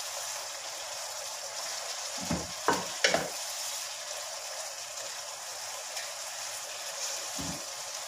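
Sliced vegetables and chicken sizzling steadily in a wok in soy sauce and vinegar while being stirred with a wooden spatula. The spatula knocks against the pan about three times a little after two seconds in, and once more near the end.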